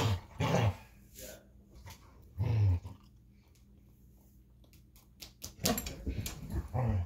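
Two dogs, a puppy and an older hound, play-fighting: three loud gruff growls and barks in the first three seconds, then a flurry of scuffling clicks and shorter growls near the end.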